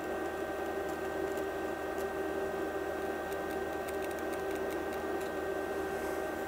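A steady hum, with light scraping and a scatter of small ticks as a hobby-knife blade scores a mark on an aluminium heat sink held against calipers. The ticks bunch up about halfway through.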